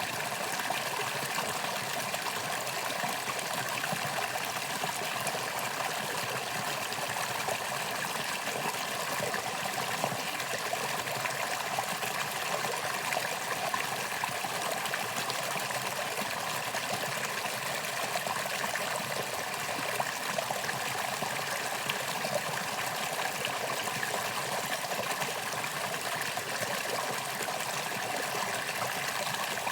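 Mountain stream flowing over rocks in a steady rush, with small splashes and trickles.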